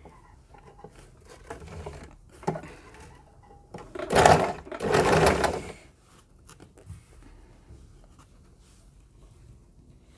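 Electric sewing machine stitching in two short runs about four seconds in, a line of stitching around the edge of a collar; quieter fabric handling before and after.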